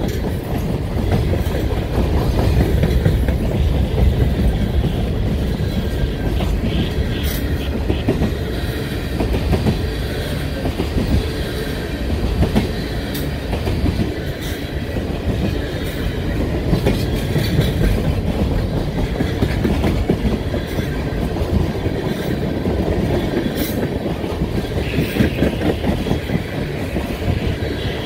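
Cars of a long mixed manifest freight train rolling steadily past: a continuous rumble of steel wheels on rail with clickety-clack over the rail joints.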